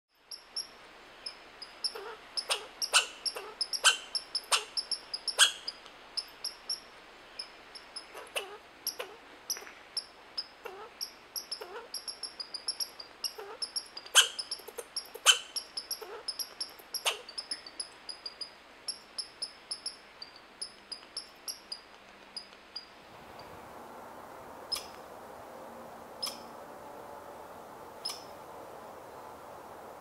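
American red squirrel calling: a long run of short, sharp chattering calls, several a second, with a faint high trill beneath. After a change near the end, only a few single calls come about a second and a half apart over a steady background hiss.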